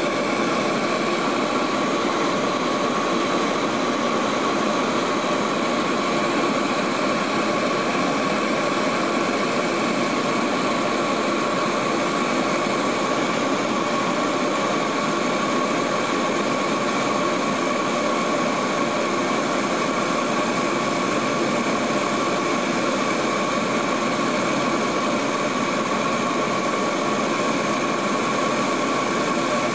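Steady cabin drone of a Lockheed L-188 Electra's Allison 501 turboprop engines and propellers in cruise flight, heard from inside the cabin, with a steady whine over the noise.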